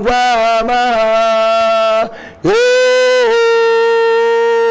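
A man singing unaccompanied, holding long steady notes and stepping between pitches. After a short breath about two seconds in, he holds one long note to the end.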